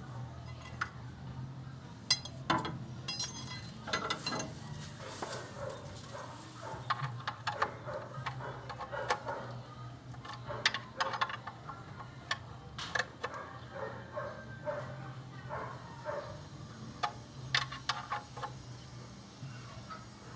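Steel L-shaped wrench clicking and knocking against the oil-pan drain plug of a Toyota K-series engine as the plug is turned back in by hand, in irregular sharp clicks, over a steady low hum.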